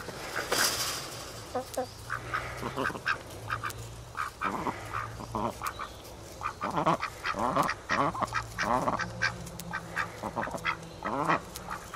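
Domestic hens clucking, a string of short calls with a few longer, falling ones, with a brief rustle of handling noise about half a second in.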